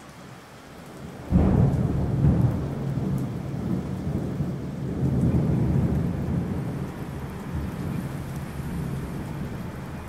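A sudden, loud, deep rumble about a second in that rolls on and slowly fades.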